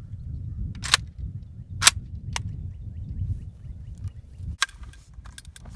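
A few sharp cracks: two loud ones about one and two seconds in, a lighter one soon after, another near the end, then several small clicks, over a low rumble.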